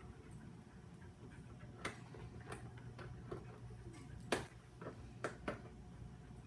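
A few faint, irregularly spaced light clicks and ticks over a low room hum, the sharpest one about four seconds in.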